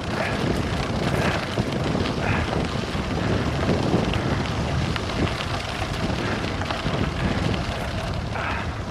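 Heavy wind buffeting on the camera's microphone from a fast bicycle descent, with the tyres crunching and rattling over a gravel road in scattered short knocks.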